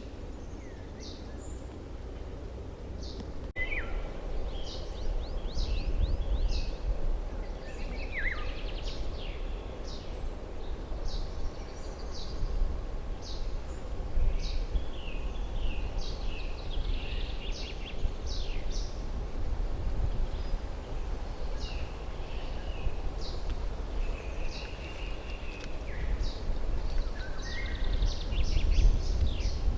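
Several songbirds singing, with many short chirps and whistled phrases repeating all through, over a steady low rumble that grows louder a few seconds in.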